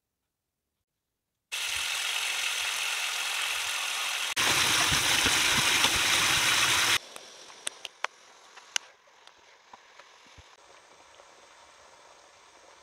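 Tap water running from a kitchen faucet into a bowl of raw beef short ribs as they are rinsed by hand. It starts about one and a half seconds in, gets louder about four seconds in, and stops abruptly about seven seconds in. A faint hiss with a few sharp clicks follows.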